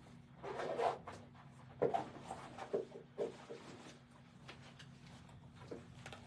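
Faint handling noises of someone moving about: rustling with a few sharp clicks and knocks in the first half, over a low steady electrical hum.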